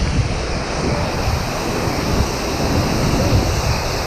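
Steady rush of a waterfall and its plunge pool, with uneven low rumbling from wind or handling on the small camera's microphone.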